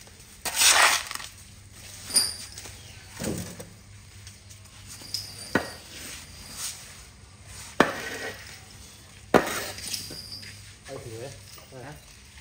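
Shovel scraping and knocking on a wet concrete floor, half a dozen separate strokes. The first is a long scrape and the loudest, and two of the later strokes are sharp knocks.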